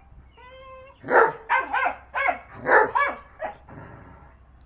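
Vizsla puppy giving a short whine, then a quick run of about seven high-pitched yapping play barks.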